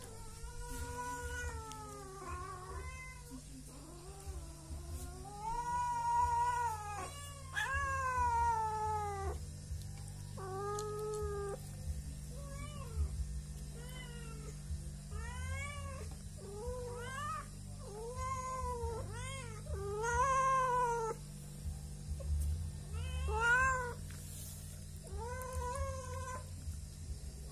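Domestic cats meowing again and again, hungry and demanding food: about sixteen calls, some drawn out for a second or two and others short, each rising and then falling in pitch.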